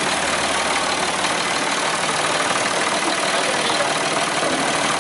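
Ford 4610 tractor's three-cylinder diesel engine running steadily at idle.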